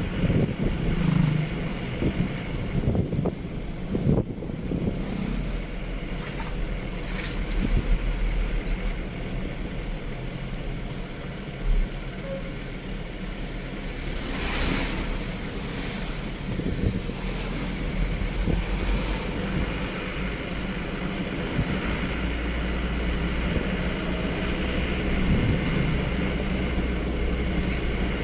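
A vehicle driving along a road: a steady engine and road rumble, with some wind noise.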